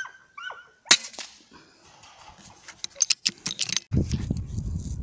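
A PCP air rifle shot about a second in, a single sharp crack, just after a short high-pitched animal call. A quick run of clicks and knocks follows around three seconds in, then a low rumble in the last second.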